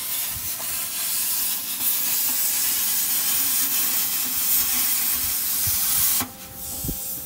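Cutting torch hissing steadily as it cuts through the steel of a wood boiler's top and stack, its cutting jet shut off abruptly about six seconds in, leaving a fainter hiss.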